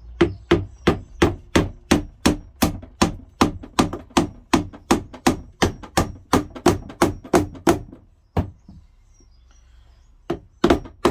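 Claw hammer tapping rapidly and repeatedly, about three blows a second, on the plastic housing of a Karcher K4 pressure washer to force its tight outlet fitting onto an aluminium back foot. The tapping stops for about two seconds near the end, then starts again.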